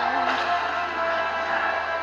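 Film soundtrack with background music. A wavering voice-like tone ends shortly after the start, and held tones continue under a dense wash of sound.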